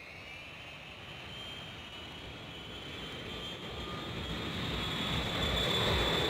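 Jet aircraft engines in flight: a steady rushing noise with a high whine, growing steadily louder.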